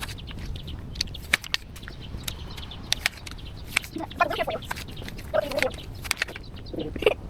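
Short clucking calls in three brief bursts, about four seconds in, again about a second later, and near the end, over scattered sharp clicks and snaps.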